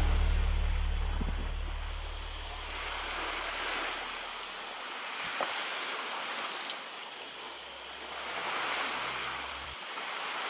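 Small waves washing on a rocky shore, the sound swelling and ebbing, with a steady high-pitched chirring of insects setting in about two seconds in. Low background music fades out during the first few seconds.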